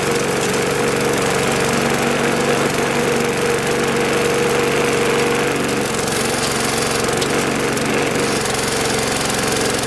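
Murray push mower's small four-stroke engine running steadily with the blade spinning, an even engine note with no change in speed.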